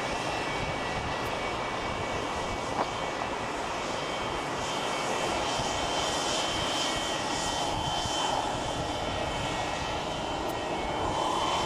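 McDonnell Douglas MD-80-series airliner's rear-mounted jet engines running at taxi power: a steady rush with several high whining tones, one whine growing stronger about halfway through.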